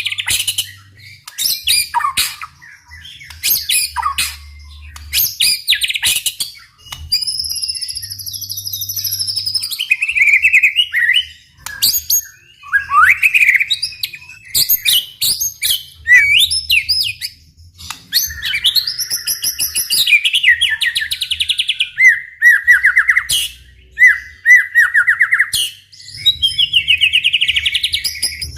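White-rumped shama (murai batu) singing a long, varied song. Whistled glides, rapid trills of repeated notes and sharp clicking notes follow one another in quick succession, with only brief pauses between phrases.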